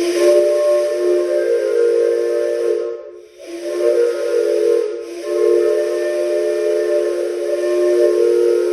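A 3D-printed 4-inch 5-chime steam whistle replica blown with compressed air: several steady low tones sounding together as one chord over a loud hiss of rushing air. It blows for about three seconds, cuts out briefly, then sounds again with a short dip about five seconds in.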